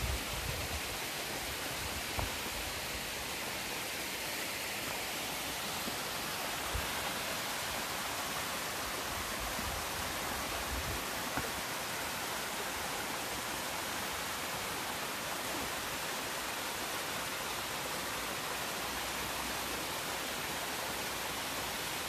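Steady rushing hiss of a waterfall, falling water spread evenly across all pitches, with a few soft low bumps in the first half.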